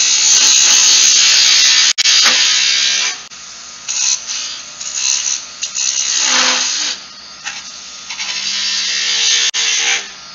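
Skew chisel cutting a spinning wood spindle on a lathe, making a loud shaving hiss over the lathe's steady hum. The cut runs strongly for about three seconds, then comes and goes in shorter passes and stops near the end.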